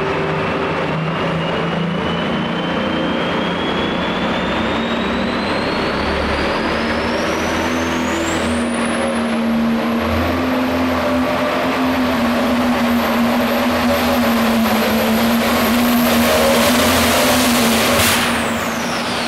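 Case IH 7220 Light Pro pulling tractor's turbocharged diesel running flat out under the load of the pulling sled. A high turbo whistle climbs steadily over the first half and then holds. Near the end a sharp bang comes as the power comes off, and the whistle falls away.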